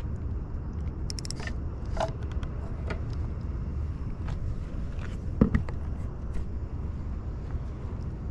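Clicks and knocks of spinning rods being handled and set into a plastic rod holder on a wooden pier railing, with one sharper knock about five and a half seconds in, over a steady low rumble.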